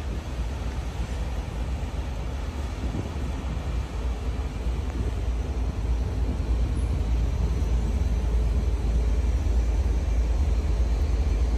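Diesel-hauled commuter train rolling past at close range: a steady low rumble of locomotive engine and wheels on rail, growing louder about halfway through as the locomotive comes closest.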